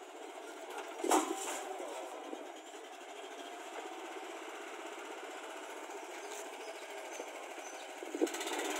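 Small diesel engine of a Swaraj Code compact tractor running steadily. There is a sharp clunk about a second in and another near the end.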